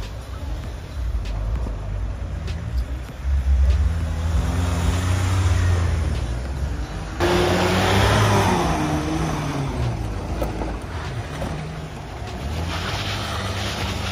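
Off-road SUV engines revving under load as they climb a steep sandy bank, the pitch rising and falling with the throttle. The sound changes abruptly about seven seconds in, to a different vehicle revving.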